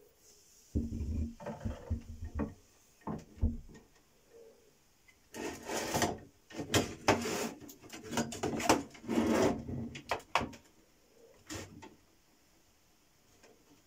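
Handling noise from setting up an electrolysis cell. First come a few dull knocks as the electrode holder is seated in a glass jar. Then comes a longer run of rubbing and scraping with clicks as the wires are gathered and a metal-cased power supply is moved on the tabletop, and one last knock near the end.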